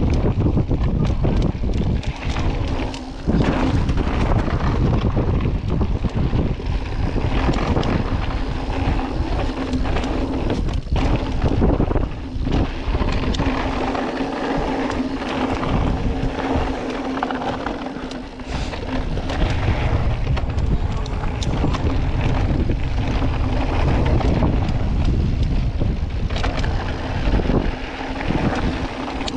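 Mountain bike rattling and knocking over a rough downhill trail, with wind rushing over the microphone and a steady hum through most of it.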